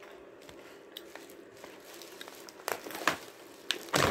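Plastic snack packet crinkling in short bursts as it is handled, growing louder and loudest near the end, after a few faint clicks.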